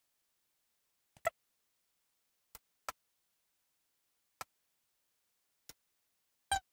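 A few sharp, scattered clicks from a computer keyboard and mouse being used to type, about seven in all, with dead silence between them.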